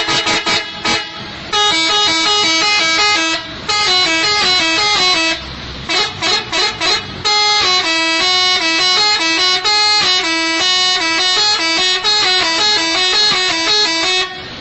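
A multi-tone "telolet" musical vehicle horn playing a quick tune of stepping notes, with a run of short, clipped honks about six seconds in.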